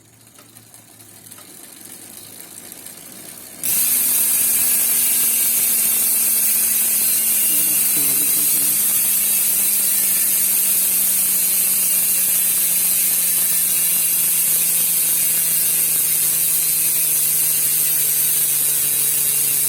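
Speedone Torpedo 8-pawl bicycle rear hub freewheeling. A quieter sound swells for about three and a half seconds, then a loud, steady buzz of rapid pawl clicks sets in suddenly, its pitch sinking slowly as the wheel slows. The hub runs this loud because the oil it came with from new has dried out inside it.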